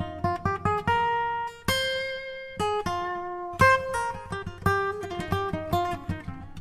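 Background music: an acoustic guitar picking a melody in quick plucked notes, with a few notes left to ring longer.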